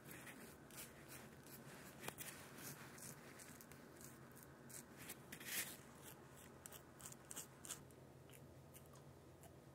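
Feather double-edge safety razor scraping through lathered stubble on the neck: a run of faint, short rasping strokes, one louder about halfway through, stopping a little before the end.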